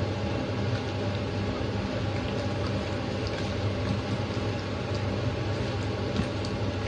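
Steady low machine hum filling the kitchen, with faint wet squishing and light clicks of a hand mixing marinated chicken wings in a stainless steel bowl.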